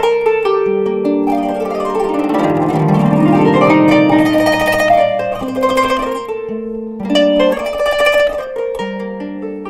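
Kanun, the Turkish plucked zither, playing a solo melody of ringing plucked notes, with a fast sweeping run of notes about two to four seconds in.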